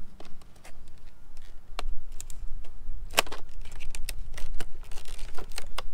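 Stiff plastic blister packaging being cut and pried open with a knife: scattered sharp crackles and clicks. Under them runs a steady low rumble of wind on the microphone.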